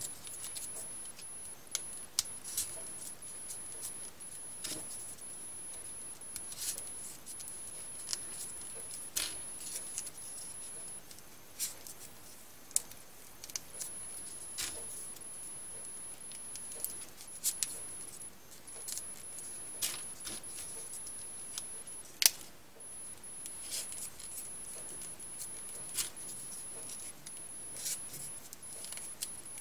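Folded paper triangle units of a modular 3D origami model handled and pressed into place by hand: scattered, irregular light clicks and taps of stiff paper, the sharpest about 22 seconds in.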